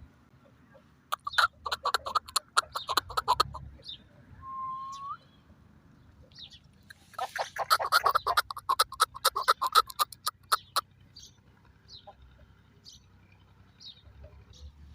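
Chukar partridge calling: two bouts of rapid repeated notes lasting a few seconds each, with a short rising whistle between them and a few faint chirps after.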